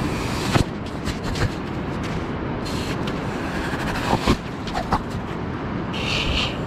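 Razor clam gun being worked down into wet beach sand over a steady rushing noise, with a few dull knocks. Near the end there is a brief hiss as the gun is drawn up with its core of sand.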